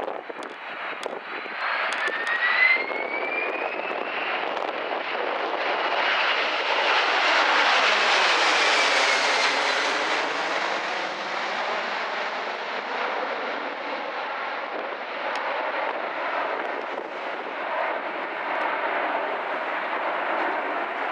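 Jet airliner passing low overhead, its engine noise swelling to a peak about eight seconds in and then slowly fading. An engine whine rises in pitch early on.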